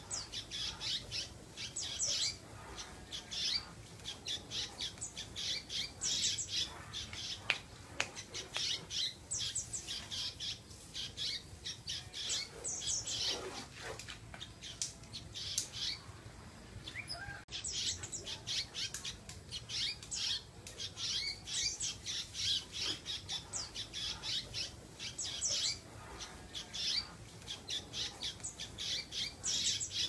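Domestic canary singing continuously in long runs of rapid, high-pitched trilled notes, with one brief pause a little past halfway.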